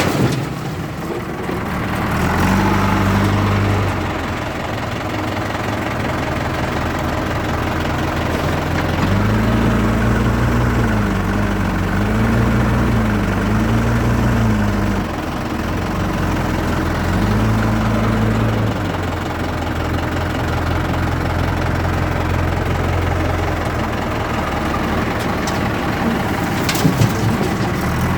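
JCB 3DX backhoe loader's diesel engine running, revving up and dropping back to idle several times as the loader works, with a couple of short knocks near the end.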